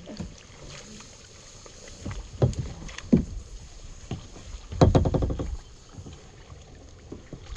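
Kayak paddle strokes in the river: a few sudden splashes and knocks, the loudest and longest about five seconds in.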